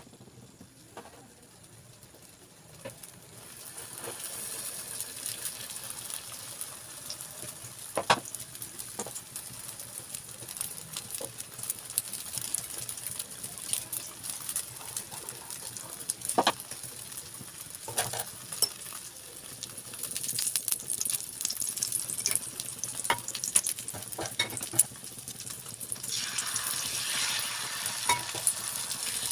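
Egg omelette sizzling in a hot nonstick frying pan, with scattered taps and scrapes of a spatula against the pan as the omelette is rolled. The sizzle grows louder near the end.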